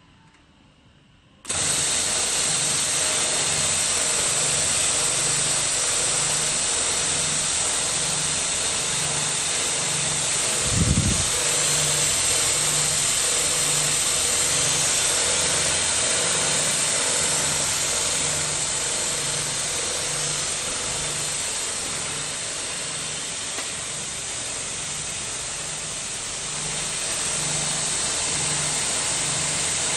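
Automatic vertical towel edge sewing machine running, its sewing heads stitching at speed. It makes a steady mechanical whir and hiss over a low pulse that repeats about once a second. The sound starts suddenly about a second and a half in, and there is a single low thump about a third of the way through.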